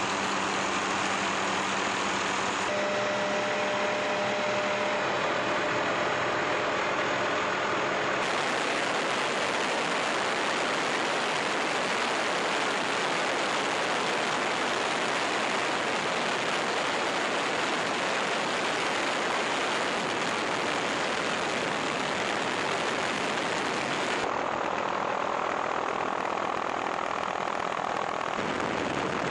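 Helicopter in flight heard from on board: a steady, dense noise of engine and rotor, with faint steady tones through the first several seconds. The sound's character shifts abruptly about 8 and 24 seconds in.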